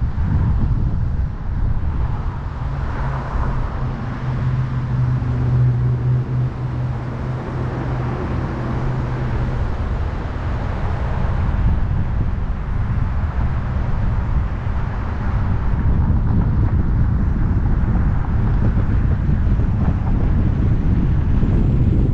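Ford Fusion driving along a road: steady tyre and wind noise, with a low hum from the car for several seconds in the first half.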